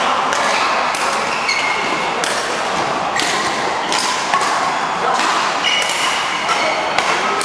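Scattered thuds and taps echoing in a large indoor hall over steady background noise, the sounds of a jianzi (kicked shuttlecock) match: kicks on the shuttlecock and footfalls on the court.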